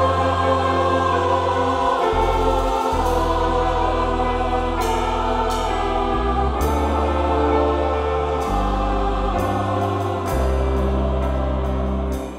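Choir singing a vocal arrangement of a boi-bumbá toada, over sustained low bass notes that change every second or two.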